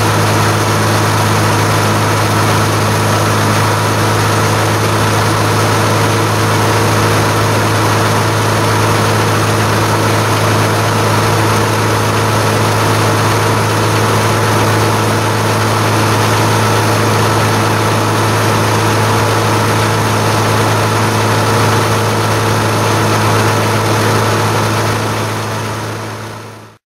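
Gleaner combine running steadily with a strong low hum and a dense rushing hiss while its unloading auger empties oats into a wagon. The sound fades out near the end.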